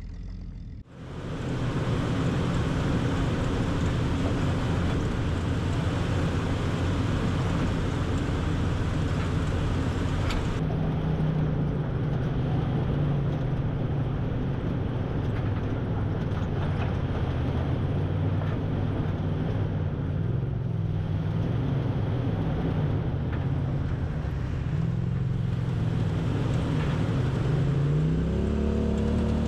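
An off-road vehicle's engine running over dense wind and terrain noise, its pitch wandering as the revs change and climbing near the end.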